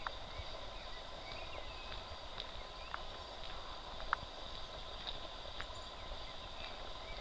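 Footsteps of someone walking on an asphalt road, a short tap or scuff about every half second to second, over a steady high-pitched background tone.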